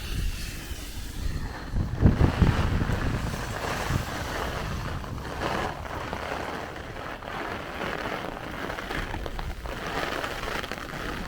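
Strong, gusty storm wind buffeting the microphone, with rain falling; the heaviest gusts come about two seconds in.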